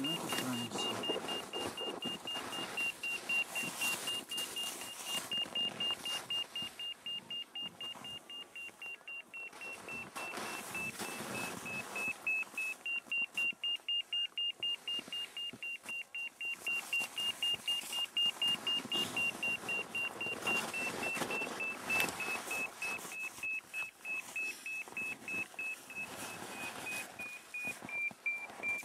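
Avalanche transceiver (ARTVA) in search mode, giving a continuous rapid beeping at one high pitch. It is held low over the snow while pinpointing a buried transmitter. The pitch drifts slightly lower toward the end, with rustling handling noise underneath.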